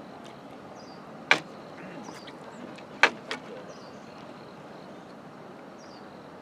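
Two sharp clicks or knocks, about a second and a half apart, with a smaller one just after the second, over steady outdoor background noise with faint high chirps.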